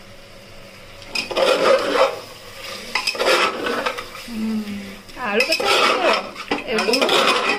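Metal ladle stirring and scraping mutton pieces through frying masala in a pressure-cooker pot, with a light sizzle underneath. The meat is being browned in the spices (kasha). The scraping comes in three bouts, the longest near the end.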